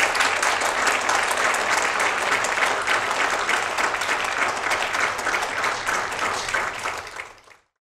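Audience applauding: many hands clapping in a steady, dense patter that cuts off abruptly near the end.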